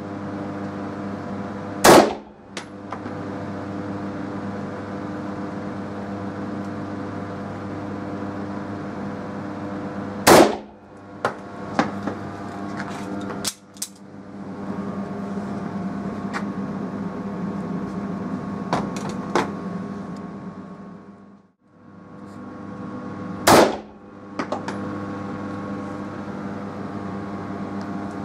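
Three single pistol shots from a Tokarev TT in 7.62×25 mm, spaced several seconds apart, each followed by a few light clicks, over a steady low hum.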